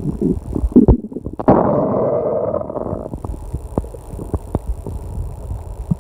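Loud stomach growling: a run of irregular low gurgles and crackling squelches, with a longer gurgling rumble setting in about one and a half seconds in.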